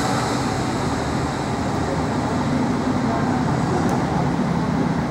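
Düsseldorf tram running along a city street: a steady rumble mixed with road noise.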